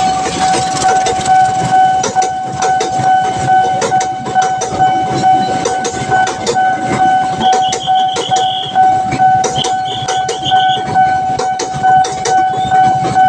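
Level-crossing alarm sounding one steady high tone while a train passes, its wheels clattering rapidly over the rail joints. A short warbling tone comes twice in the second half.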